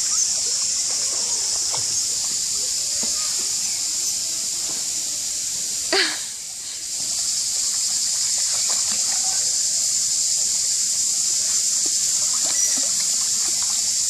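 Shallow stream water splashing as a small dog wades through it and pushes its nose under, over a steady hiss of running water. One short, sharp splash about six seconds in.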